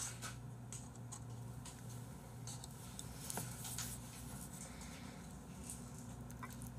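Faint scattered clicks and light taps of metal chopsticks and small dishes being handled at a table, over a steady low hum.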